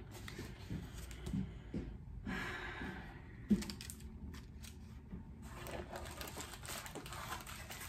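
Cardboard mailer box and paper packing being handled: scattered light taps and knocks, a brief rustle about two seconds in, and a sharper click a little later.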